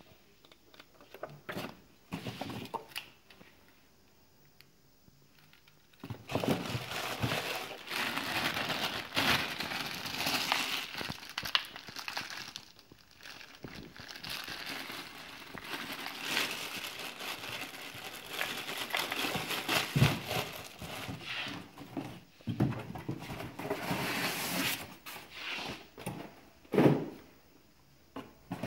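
Clear plastic packaging bag crinkling and rustling as it is handled, after a quieter first few seconds of light handling. A few knocks come through, the loudest near the end.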